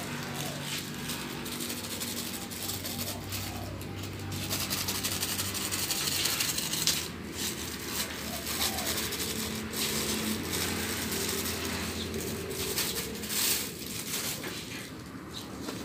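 Crinkling and rustling of a thin plastic flour sachet as it is torn open and shaken out over a bowl, with small clinks, over a steady low hum that fades near the end.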